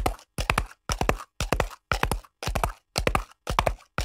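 Horse hooves clip-clopping in an even rhythm, a cluster of two or three sharp knocks about twice a second.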